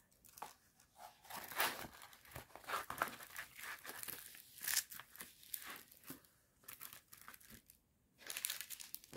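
Paper sleeve and the plastic film over a diamond painting canvas crinkling and rustling as the canvas is slid out and pressed flat by hand, in irregular crackles with a short lull near the end.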